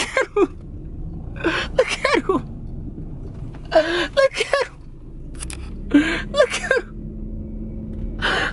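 Several short bursts of voice, gasps and unclear words, over the low rumble of a car cabin while driving slowly. A steady low hum joins about six seconds in.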